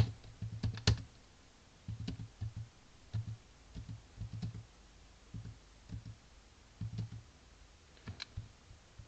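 Computer keyboard typing: a few quick keystrokes in the first second, then single key presses every half-second to a second as numbers are entered.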